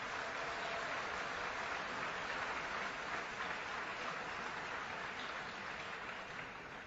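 Audience applauding, swelling up at the start and dying away near the end.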